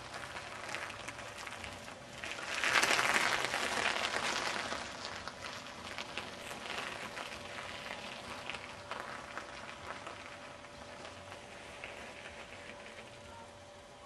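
Bicycle tyres crunching and crackling over loose gravel, louder for about two seconds near the start, then fainter.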